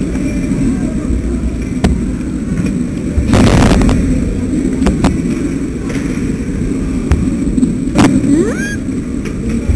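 Steady low rumbling static from a helmet-mounted camera's microphone, broken by scattered knocks and a short scraping rustle about three and a half seconds in as the helmet moves about. Near the end comes a brief rising tone.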